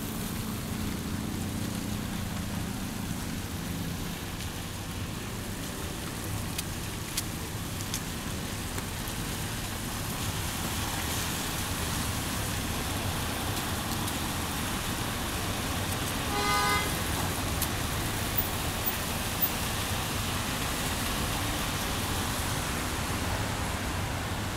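Traffic on a wet city street: a steady hiss of tyres on the rain-soaked road over a low engine rumble, with one short horn toot about two-thirds of the way through.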